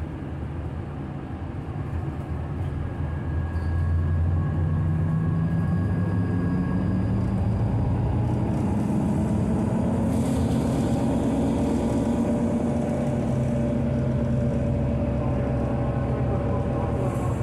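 City bus engine and road noise heard from inside the cabin while the bus is under way. The engine gets louder about three and a half seconds in and its note climbs slowly as the bus gathers speed, then holds steady.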